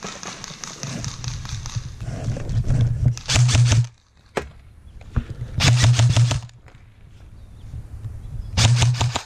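Rifle-style airsoft gun firing three short rapid-fire bursts, one at about three seconds in, one near six seconds and one at the end, each under a second of fast clicking. Before them comes a stretch of rustling and shuffling.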